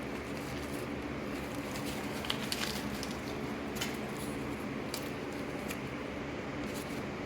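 Scattered light clicks and rustles of objects being handled, over a steady low hum.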